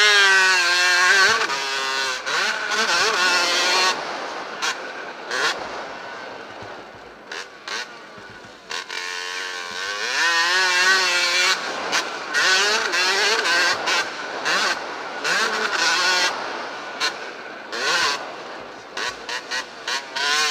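65cc two-stroke motocross bike engine revving up and down with the throttle, heard from on board with bursts of wind noise on the microphone. It eases off for several seconds before the middle, then revs hard again from about halfway.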